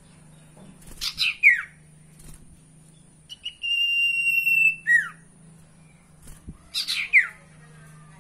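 Common iora (sirtu/cipoh) calling: a quick run of falling whistled notes, then a long, steady, high whistle of about a second and a half that ends in a short falling note, then another run of falling notes near the end. A faint steady low hum lies under the calls.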